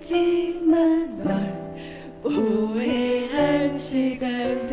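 A pop song sung live into microphones over a guitar-led backing. The sung line drops away for about a second in the middle before the voices come back in.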